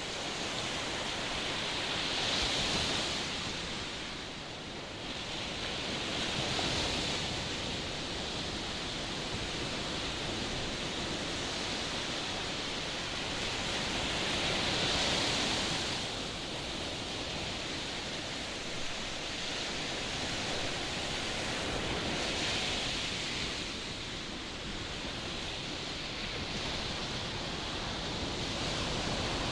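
Rushing noise of strong wind and sea surf, swelling and easing every few seconds.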